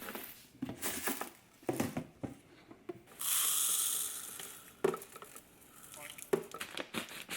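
Kitchen food-prep handling sounds: a run of short clicks and knocks, with a steady hiss lasting about a second and a half, starting about three seconds in.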